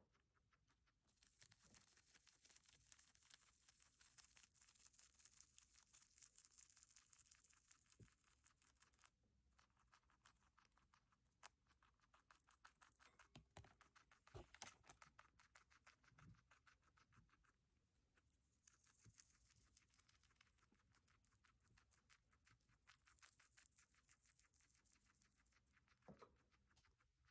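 A guinea pig chewing and tearing fresh lemon balm leaves: faint, rapid crunching and nibbling clicks with short pauses.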